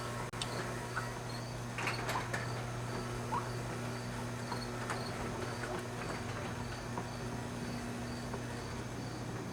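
1993 Chevrolet Caprice engine idling with a steady low hum and a hiss from a vacuum leak. A faint high chirp repeats about twice a second, with a few light clicks.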